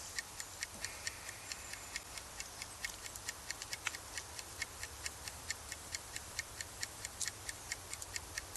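Wood campfire crackling: a steady stream of small sharp pops and ticks at uneven spacing, several a second.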